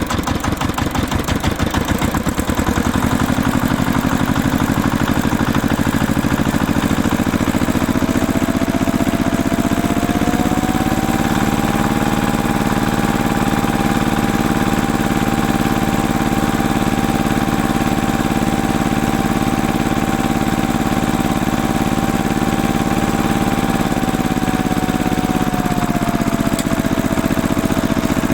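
Riding lawn tractor engine running. It picks up from a lumpy idle in the first few seconds, then climbs to a steady higher speed with a whine. A few seconds before the end it drops back down.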